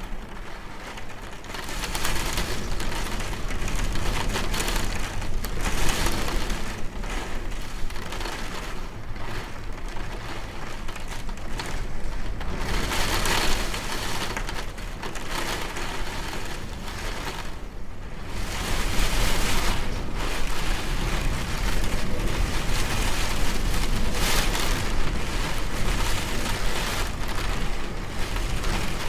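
Rainstorm sound effect: a dense, steady rush of rain that swells louder several times, over a constant low rumble.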